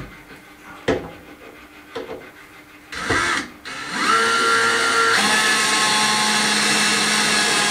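Cordless drill driving a screw into wood: a few light knocks, a short burst about three seconds in, then the drill runs steadily for about four seconds, its pitch dropping a step partway through.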